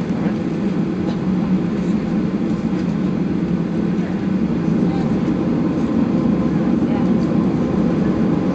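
Steady rumble of a Ryanair Boeing 737-800's jet engines and airflow heard from inside the passenger cabin as the plane gets under way, growing slightly louder in the second half.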